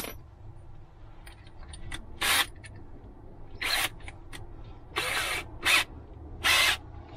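Cordless drill run in about five short bursts, each under half a second, boring the screw holes for drawer pulls into a wooden drawer front. The short triggering keeps the depth of the holes under control.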